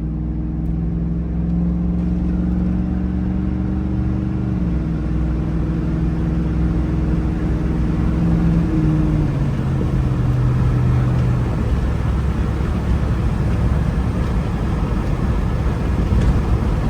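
Pickup truck driving and picking up speed: the engine note drops a step at each upshift, about four and nine seconds in, then gives way to steady tyre and road rumble.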